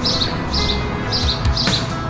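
Background music with a steady beat and held instrumental notes, with short high chirps repeating evenly about every half second.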